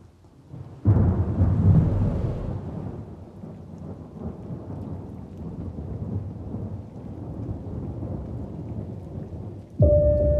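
A thunderclap strikes about a second in and rolls into a long, slowly fading low rumble. Near the end, sustained musical tones begin.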